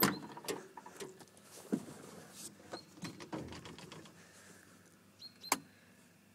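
Clicks, knocks and rustling as a Suzuki Samurai's driver's door is opened and someone climbs into the seat. The loudest click comes at the start, and another sharp click about five and a half seconds in; no engine is running yet.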